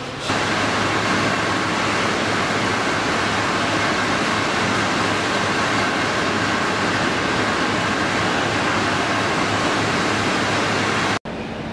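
Steady machinery noise of a plastic bag factory: an even, unchanging hiss with a low hum underneath, which cuts off abruptly near the end.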